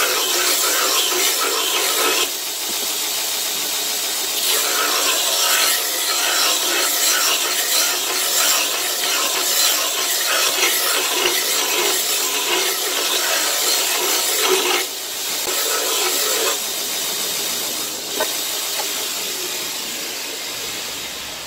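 Steel knife blade being ground on a motor-driven belt grinder: a steady, harsh grinding hiss as the blade is pressed to the running belt. There are short breaks where the blade is lifted and set back, and the sound eases off near the end as the blade is drawn away from the belt.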